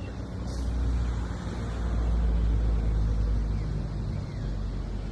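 Helicopter running, a steady low drone that swells about a second in and eases off toward the end.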